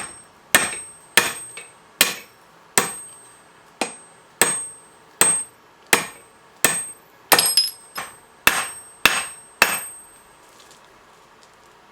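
Blacksmith's hammer striking steel on an anvil, about fifteen blows at an uneven working pace, each leaving a short high ring. The blows stop near the end.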